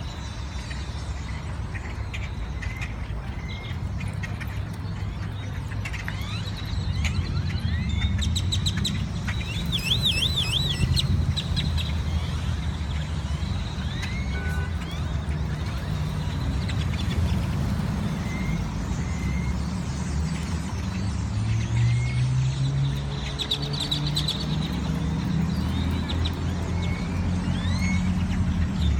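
A flock of birds calling: many short rising chirps, with a quick warbling trill about ten seconds in and again near the end. A steady low rumble runs underneath.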